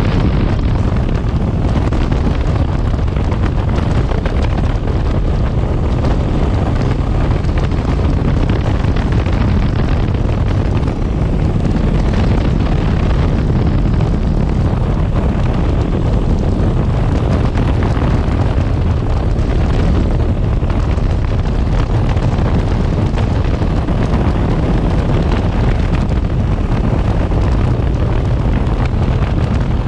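Wind rushing over the microphone of a moving motorcycle: a loud, steady low rumble of wind buffeting mixed with road and engine noise.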